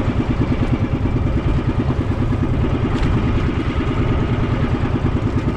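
Small fishing boat's engine running steadily under way, with a fast, even beat.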